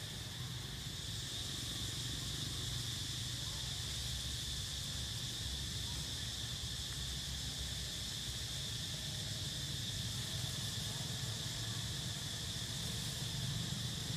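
Steady insect chorus: a constant high, even buzz that does not change over the few seconds, over a low rumble.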